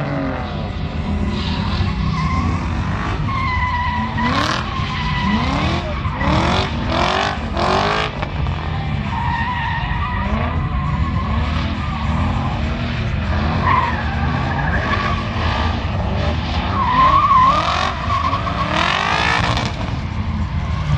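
Drift cars sliding sideways through the corners, tyres squealing and skidding while the engines rev up and down over and over.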